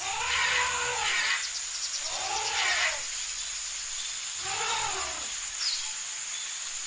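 A wild animal calling three times, each call about a second long and arching up then down in pitch, over steady high-pitched forest ambience hiss, with a brief bird chirp near the end.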